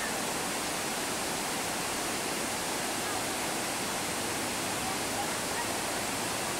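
Steady rush of water pouring down a water-ride flume.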